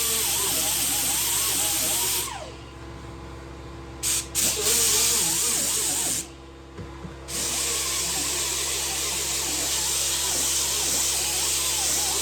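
Mini grinder grinding welded pin stubs flush on a steel car door, a steady hissing grind. It stops about two seconds in, winding down, runs again briefly around four seconds, pauses once more around six seconds, then grinds steadily on.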